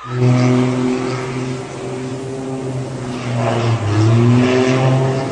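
Light propeller plane's piston engine running loudly with a steady drone. About three and a half seconds in, its pitch dips and rises again as the plane manoeuvres.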